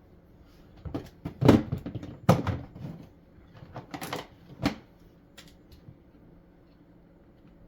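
A cluster of sharp knocks and clatters, like parts or panels being handled and set in place. The loudest come about a second and a half in and just after two seconds, with a last knock near five seconds, over a low steady hum.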